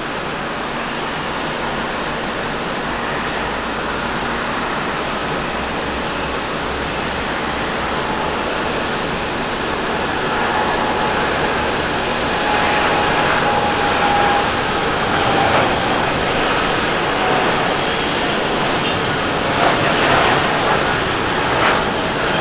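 Boeing 787-8 Dreamliner's twin turbofan engines at takeoff thrust during the takeoff roll: a steady jet rush with a thin high whine on top, growing louder as the airliner accelerates to liftoff.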